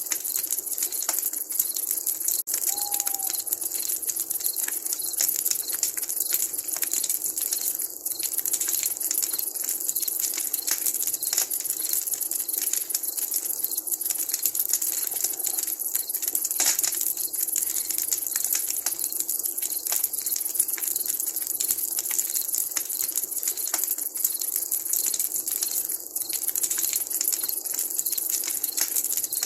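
Wood campfire crackling: a steady high hiss dotted with many small sharp pops. A single brief falling call sounds about three seconds in.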